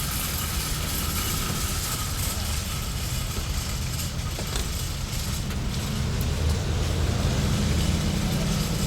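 Shopping-centre parking lot ambience: car engines rumbling low as vehicles move through, swelling about two-thirds of the way in, with shopping carts rattling and clicking over the pavement.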